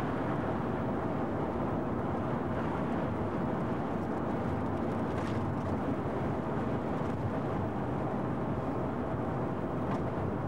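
Steady roar of wind and road noise heard from inside a moving car, at an even level throughout, with a couple of faint ticks.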